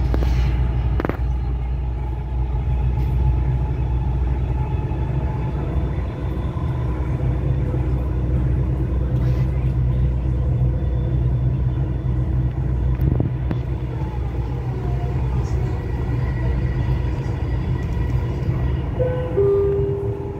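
Dubai Metro driverless electric train running at speed, heard from inside the front car: a steady low rumble of wheels on the elevated track with a faint motor whine, and a couple of short clicks.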